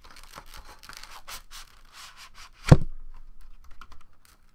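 Rigid plastic photo holders and box packaging scraping and rustling as a stack of 8x10 photos is slid out by hand, then one loud low thud a little past halfway, followed by a few light clicks.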